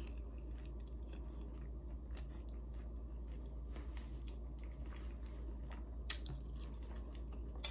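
Close-miked chewing of a mouthful of food, with soft wet mouth clicks and smacks throughout and a sharper click about six seconds in.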